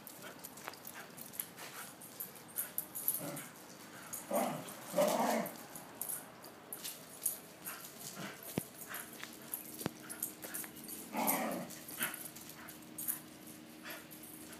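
Two Shiba Inus, an adult and a puppy, play-fighting, with two short bouts of dog vocalizing, about four seconds in and again about eleven seconds in, and scattered light clicks and scuffles between them.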